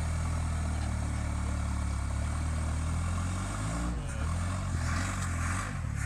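First-generation Toyota pickup's engine running at a steady low speed, then revving up and down unevenly from about four seconds in as the truck, stuck in a deep rut, tries to climb the rock. A hissing rush joins the engine near the end.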